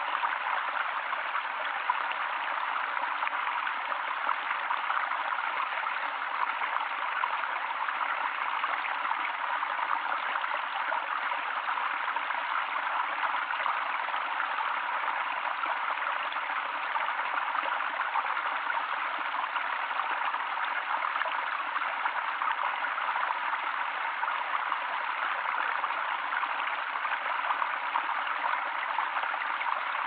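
Small forest stream running steadily, water spilling in thin falls over a fallen log into a shallow pool.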